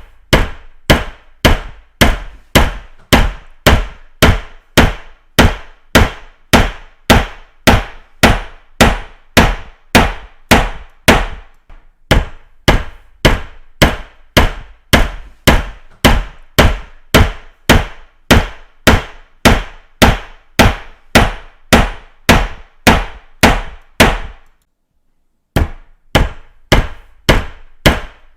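A hammer striking steadily and evenly, about two blows a second, each a sharp knock with a short ring. The blows break off for about a second near the end, then resume.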